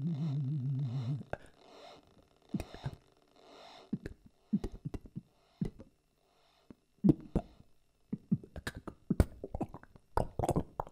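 Improvised extended-technique vocal sounds. A low, warbling drone with a regular wobble stops about a second in. It is followed by sparse mouth clicks, lip pops and short breathy vocal bursts that grow busier toward the end.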